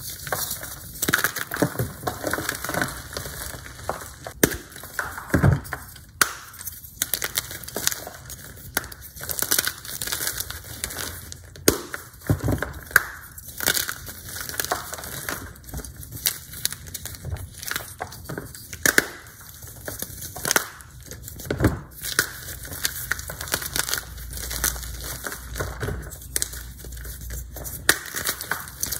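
Hard blocks of Z-Athletic gym chalk crushed and crumbled in bare hands: a run of irregular crunchy snaps and cracks, with softer gritty crumbling of powder between them.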